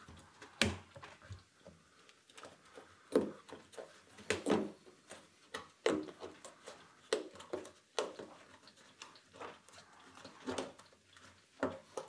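Rubber door seal of a Siemens IQ300 front-loading washing machine being worked onto the rim of the front panel opening by hand. There are scattered short rubbing and knocking sounds as the rubber is pressed, rolled and pulled against the edge.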